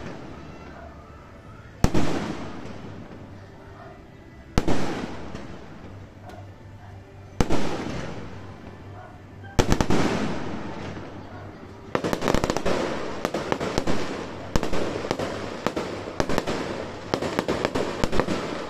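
Aerial fireworks shells bursting: four separate loud bangs a couple of seconds apart, each trailing off slowly, then from about twelve seconds in a rapid barrage of many cracks and pops.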